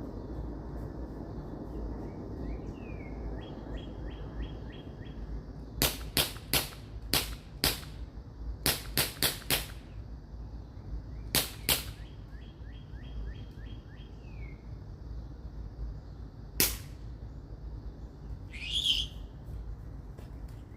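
A BB gun being fired: about a dozen sharp cracks, mostly in quick runs about six to twelve seconds in, then one more a few seconds later. A small bird chirps and trills in the background.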